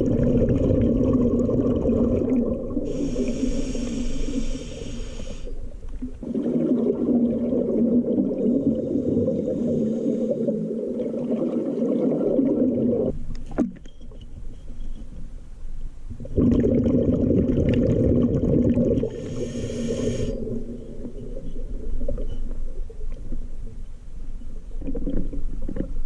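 Scuba diver breathing through a regulator underwater: long, loud rumbling stretches of exhaled bubbles, with two hissing inhalations about 3 and 19 seconds in.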